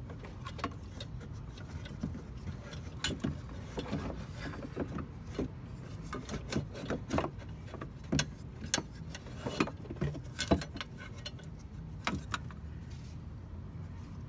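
Irregular small clicks, taps and knocks of hands working a cable connector loose from an old car voltage regulator, metal parts knocking together, over a low steady rumble.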